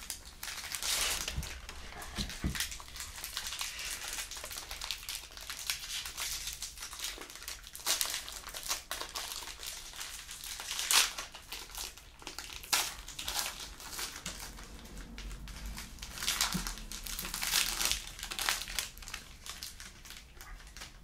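Plastic trading card pack wrapper crinkling and rustling in irregular bursts as it is torn open and handled.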